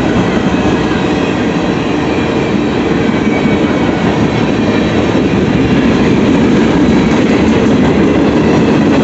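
Freight train of boxcars rolling past, a steady loud rumble of steel wheels on the rails.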